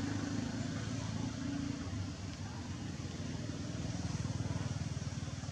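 An engine running steadily, a low pulsing hum over a hiss, like a motorbike idling.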